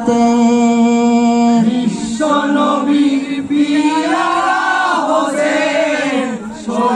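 Male voices singing a Bengali marsiya, a mourning song for Husayn, without instruments: one long held note for about the first second and a half, then the melody moving up and down.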